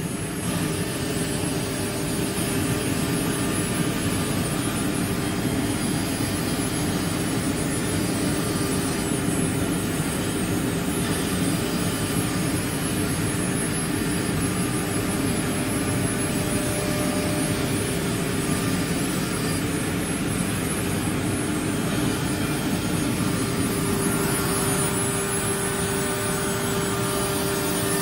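CNC wood router with disk tool changer running: a steady spindle whine over continuous machine noise, the whine growing a little stronger near the end.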